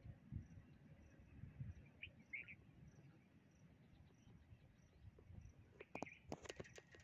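Faint open-country ambience: an insect chirps steadily, repeating a high note about every half second, with a few short bird chirps and a low rumble of wind on the microphone. A few sharp clicks come near the end.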